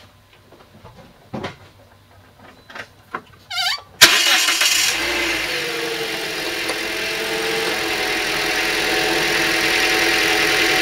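Toyota 2ZR-FE 1.8-litre four-cylinder engine, freshly fitted with new spark plugs, cranking for about half a second some three and a half seconds in and starting at once. It then runs at a steady idle whose pitch settles slightly. A few faint clicks come before the start.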